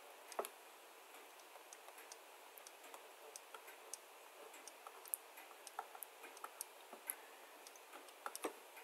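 Faint, irregular clicks and taps of a stylus drawing on a tablet, over a low hiss.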